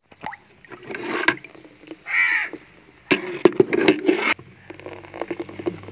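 A metal ladle scraping, knocking and splashing in a steel bucket of frothy liquid, in rough bursts with sharp clicks. A crow caws once about two seconds in.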